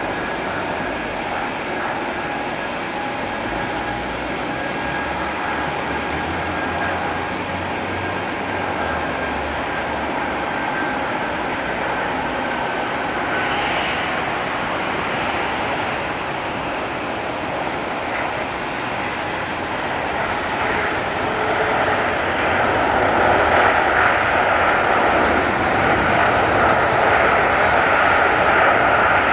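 Boeing 747-400 jet engines whining on final approach, with steady high tones. After touchdown a broad roar builds from about two-thirds of the way through as the thrust reversers are deployed, and it is loudest near the end.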